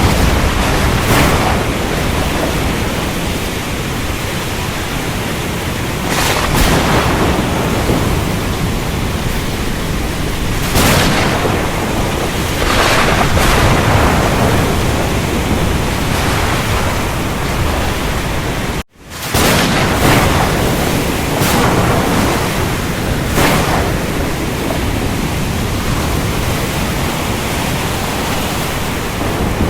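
Continuous heavy rain-and-thunderstorm noise, a dense steady hiss with short surging swells every few seconds. About two-thirds of the way in it cuts out abruptly for a split second, then comes back at full level.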